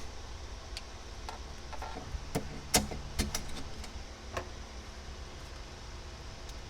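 Scattered sharp clicks and light taps of small parts and hand tools being handled during reassembly of a generator carburetor, about ten in the first half, over a steady low hum.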